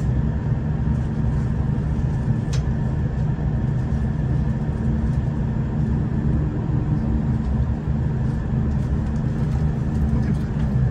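Steady low drone of a V/Line diesel railcar's underfloor engine idling at the platform, heard inside the passenger carriage.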